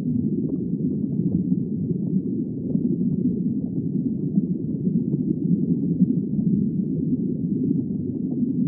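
Underwater ambience: a steady, muffled low rumble with no distinct calls.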